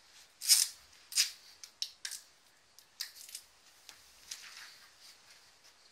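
Paper and adhesive tape being handled: a series of short, sharp rustling and tearing sounds, the loudest two about half a second and a second in, then fainter ones every half second or so.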